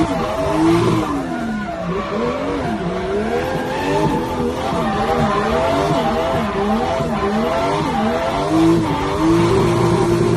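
Car engine revving up and down repeatedly with tyre squeal, as in drifting. The engine pitch rises and falls many times, then holds steady near the end.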